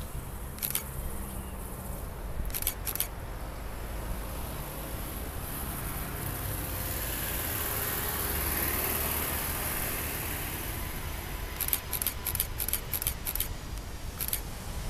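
A Garuda Indonesia Airbus A330-300's jet engines on final approach, a distant rumble that swells and fades as the airliner passes towards touchdown. Sharp camera shutter clicks come in quick runs near the start and again about twelve seconds in, several a second.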